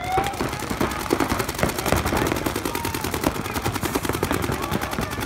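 Many paintball markers firing at once on the breakout, a dense, continuous run of rapid pops.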